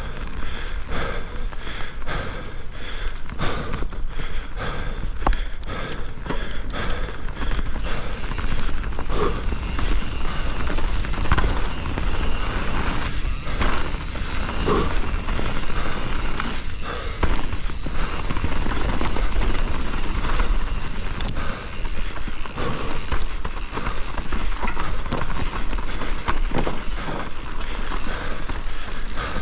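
Privateer 161 enduro mountain bike descending a dirt trail: steady tyre and drivetrain noise with many knocks and rattles from the bike over rough ground, and low wind rumble on the microphone.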